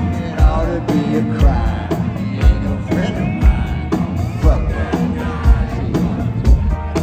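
Live rock band playing, with a heavy bass-drum beat about once a second under bending pitched instrument lines.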